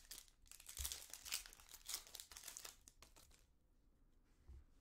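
Foil wrapper of a Topps Chrome baseball card pack crinkling and tearing as it is opened by hand. The crackle runs for about three seconds and dies down near the end.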